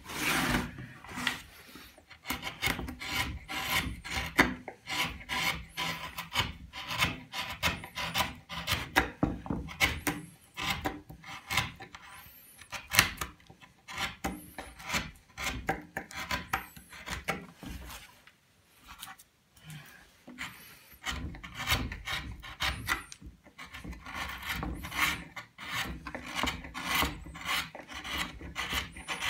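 Small hand carving chisel cutting and scraping into a wooden relief panel: a quick, irregular series of short cutting strokes, with a brief lull about two-thirds of the way through.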